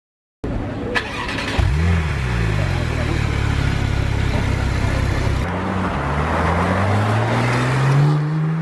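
Porsche 911 Turbo twin-turbo flat-six starting about a second and a half in: the revs flare and settle to idle, then climb in a rising rev and drop back near the end.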